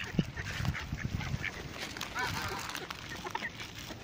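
Domestic geese and mallard ducks honking and quacking while feeding in a crowd, with many short calls overlapping and one clearer call about halfway through.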